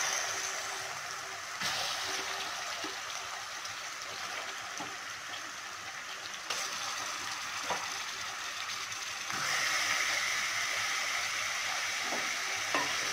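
Raw chicken pieces sizzling in hot oil with browned onions in a karahi, with a few crackling pops. The sizzle grows louder about nine seconds in.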